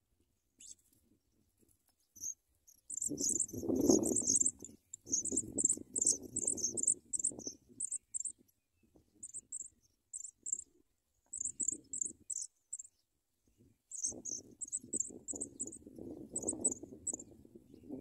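Pipit nestlings begging: runs of short, very high-pitched cheeps in quick clusters with brief gaps, starting about two seconds in and stopping near the end. Bursts of low rumbling noise come and go under them, loudest about four seconds in.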